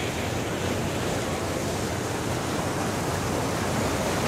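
Steady rushing of water churned up by a moving cruise boat, an even hiss-like wash with no breaks.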